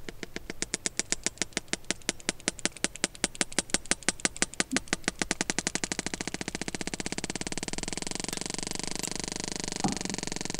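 Recorded sperm whale feeding echolocation clicks, played back over loudspeakers. Regular sharp clicks at about seven a second speed up from about six seconds in into a fast buzz of merging clicks, the sign of the whale homing in on its prey. There is a single thump near the end.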